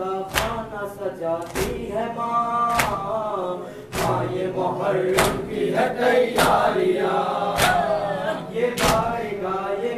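Men chanting a noha, a Muharram lament, together, with a sharp unison chest-beat (matam) landing about every 1.2 seconds.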